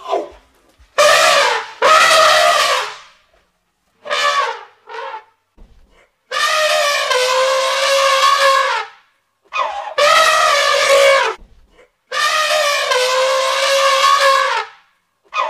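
Elephants trumpeting: a string of separate calls, a few short ones and several long ones held steady for two to three seconds, with brief silences between.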